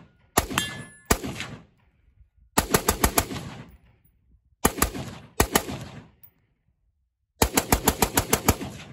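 AR-15 rifle firing rapid semi-automatic strings of shots: a few single shots, then quick runs of several shots a second with short pauses between, each shot trailing off in echo. The rifle keeps cycling without a stoppage from a magazine that has been shot through with a .22.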